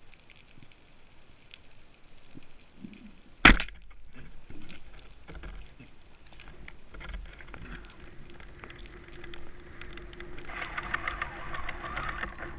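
Speargun fired underwater: one sharp crack about three and a half seconds in. From about ten seconds the speargun's line reel is being wound in, a dense clicking.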